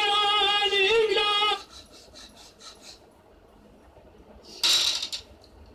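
A singer from a recorded nautanki performance holds one long, high note with a wavering pitch, cut off about a second and a half in. Near the end comes a short, loud hiss.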